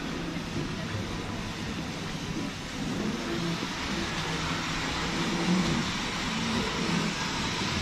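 Steady background rumble of a large airport terminal hall, with a faint steady tone and faint distant voices.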